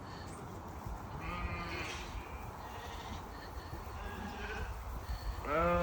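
Sheep bleating: a faint bleat about a second in, then a loud, wavering bleat near the end.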